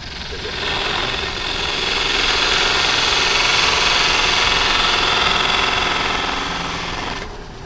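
Skew chisel cutting into a blank spinning on a wood lathe at about 1,000 to 1,200 rpm: a steady cutting hiss over the lathe's running, swelling about a second in and stopping near the end.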